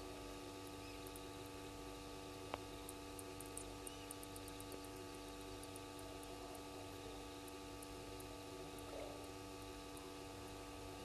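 Steady electrical hum made of several fixed tones, under faint night-time background noise. One sharp click comes about two and a half seconds in, followed by a run of faint, rapid high ticks for a few seconds.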